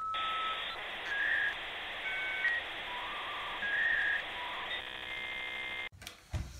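Electronic channel-intro sound: a steady hiss under a short run of whistle-like tones that step up and down in pitch, ending in a buzzy tone that cuts off suddenly about six seconds in. A soft low thump follows just after.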